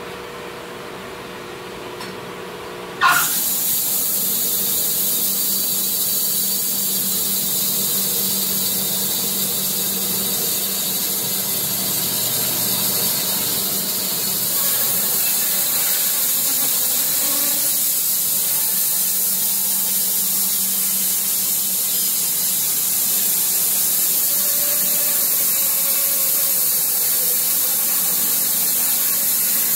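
Wood-Mizer portable band sawmill running: a steady hum, then about three seconds in a sudden jump to a loud, steady hiss as the saw comes up to full running, which holds while the saw head travels toward the log.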